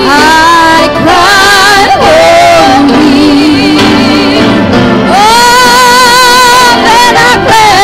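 Two women singing a slow gospel song together into microphones, holding long notes with vibrato and pausing briefly between phrases.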